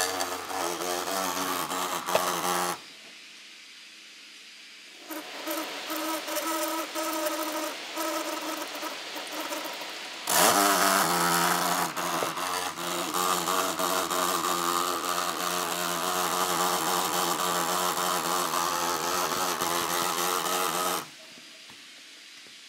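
MSI GP66 Leopard laptop's cooling fan grinding and squeaking loudly, with several steady whining tones. The sound drops back twice for a couple of seconds and comes back louder about ten seconds in with a short rising whine. This is the jamming right-hand fan, which the owner takes for a faulty fan or loose fan blades.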